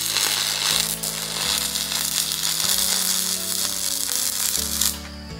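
Stick-welding arc crackling and hissing, powered by a homemade 220 V welder that uses jars of salt water to limit the current; the arc cuts off about five seconds in. Background music plays underneath.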